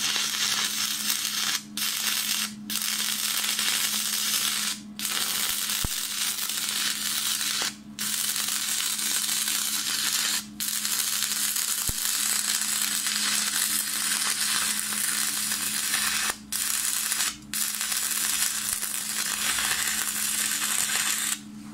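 Stick-welding arc on a 2.5 mm rod electrode at 100 A, burning steadily with a hissing, sputtering noise, broken off briefly about seven times and stopping shortly before the end. It spatters somewhat, which the welder puts down to the current perhaps being set a bit high.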